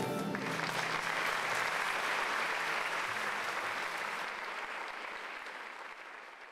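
Audience applauding after the final chord of the piece, the clapping fading out gradually toward the end.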